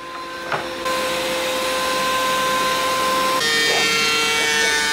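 Steady whine of a running motor, like a power tool, with its pitch changing suddenly about a second in and again about three and a half seconds in.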